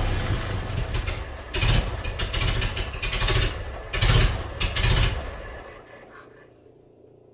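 Ford Model A four-cylinder engine running on a newly fitted Scintilla magneto, with its ignition timing not yet set: it runs unevenly with several loud bursts of revving, then dies away about six seconds in.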